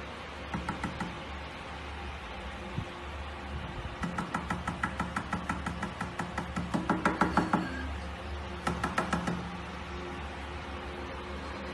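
Fingertips tapping quickly on a glass tabletop, in runs of sharp clicks at about eight a second. The longest and loudest run falls in the middle, with a short run near the start and another near the end.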